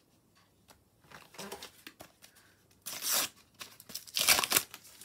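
A Panini sticker packet being torn open by hand: faint rustling, then two loud rips of the wrapper about three and four seconds in, with crinkling.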